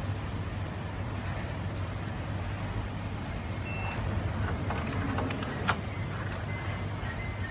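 Steady low background hum, with a few faint short beeps and a few light clicks about halfway through.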